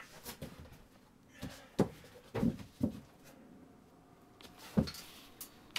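About half a dozen dull knocks and bumps, spaced unevenly, as a metal folding chair is handled and shifted on a wooden plywood floor, with faint rustling between.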